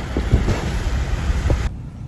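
Wind buffeting the microphone: a loud, gusty rumbling noise that drops off suddenly near the end.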